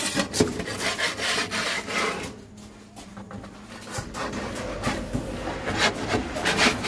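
Repeated scraping strokes, rough and rasping, as droppings are scraped and pushed out of a pigeon loft. There is a quieter spell about two seconds in before the strokes pick up again.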